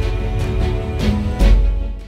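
Dramatic background music with a heavy bass and a couple of sharp percussion hits, fading out near the end.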